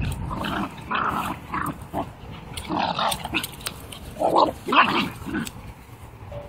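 Two Welsh Corgis, a Pembroke and a Cardigan, play-fighting, giving short bursts of growls and barks, loudest about four to five seconds in.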